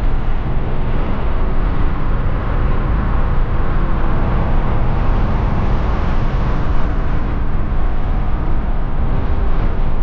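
Steady rumble of a car on the move: road and engine noise with no breaks.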